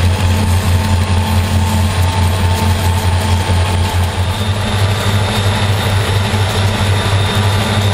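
EMD SD40-2 diesel-electric locomotive's 16-cylinder two-stroke engine running steadily while the locomotive cruises, a constant low throb with a steady hiss over it.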